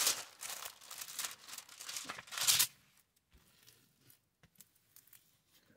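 Clear plastic wrap over a diamond painting canvas crinkling as hands press and smooth it flat. The crinkling is loudest about two and a half seconds in and stops soon after, leaving only a few faint taps.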